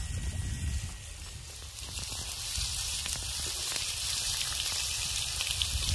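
Meat sizzling on a hot soapstone griddle plate: a dense hiss of fine crackles that grows louder about two seconds in, over a low rumble.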